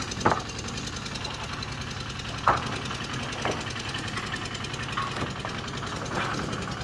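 Small engine of a concrete mixer running steadily with a fast knocking rhythm while it mixes gravel concrete. A few sharp clanks of a shovel against a steel wheelbarrow cut through it.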